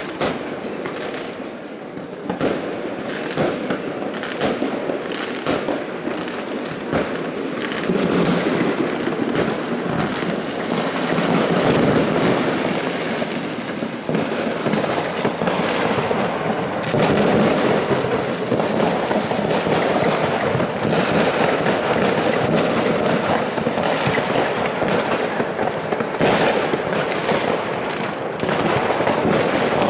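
Many fireworks going off across a city at once: a dense, continuous popping and crackling of distant bangs, growing louder about eight seconds in.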